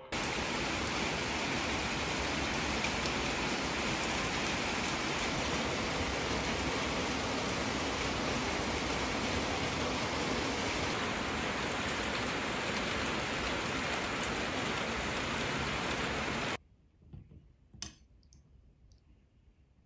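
Steady rain falling on a tiled patio and plant leaves, cutting off suddenly about sixteen seconds in. After it come a few faint clicks and one sharp click.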